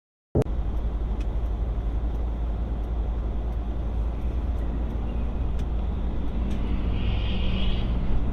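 Car driving, picked up by a dashcam: a steady low engine and road rumble that starts abruptly just after the beginning.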